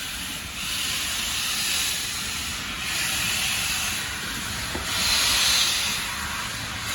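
Steam hissing from the Peppercorn A1 Pacific steam locomotive 60163 Tornado, swelling and easing every second or two, loudest about five seconds in.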